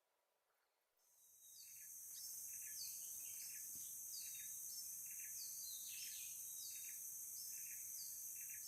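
Outdoor insects droning steadily at a high pitch while a bird gives short, falling chirps over and over, about one to two a second; the sound fades in about a second in.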